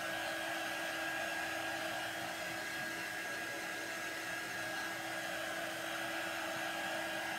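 Hand-held dryer blowing steadily, drying freshly applied chalk paste on a tin bucket.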